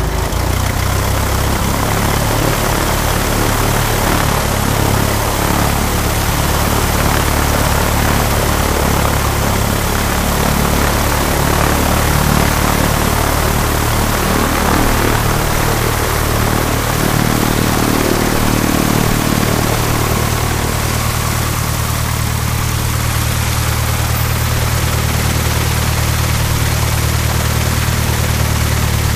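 The Lycoming O-360 four-cylinder air-cooled engine of a Grumman American AA-5B Tiger light aircraft running steadily with its propeller turning, just after being started.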